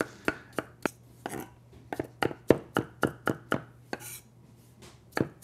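Kitchen knife chopping potato finely, with sharp, irregular chops about two to three a second and a brief pause near the end.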